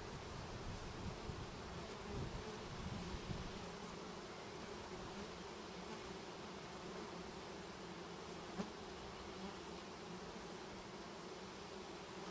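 Honey bees buzzing steadily around a newly installed hive, the hum of many bees at once, with a few low bumps in the first three seconds or so.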